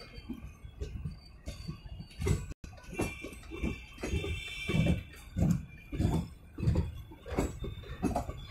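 Blue sleeper-class passenger coaches of an Indian Railways train rolling past close by, their wheels knocking over the rail joints in a steady rhythm of about two knocks every second or so. The sound cuts out for an instant about two and a half seconds in.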